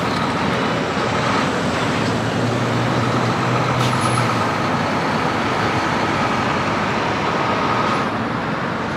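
Semi-trucks passing on a road: steady diesel engine drone over tyre and traffic noise. A low engine hum swells about two seconds in and fades after four.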